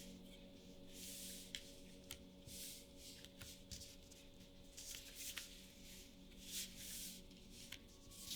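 One Piece Card Game trading cards being slid over one another and flicked: faint, brief papery swishes with a few sharp clicks, repeating every second or so.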